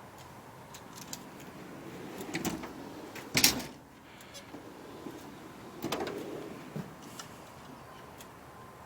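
Snap-on tool box drawers sliding on their runners: a drawer slides and shuts with a sharp clunk about three and a half seconds in, and another drawer slides about six seconds in.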